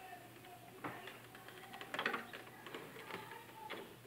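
Faint scattered clicks and light knocks of a power cable and plug being handled at an opened LCD TV's power supply board as it is connected to mains.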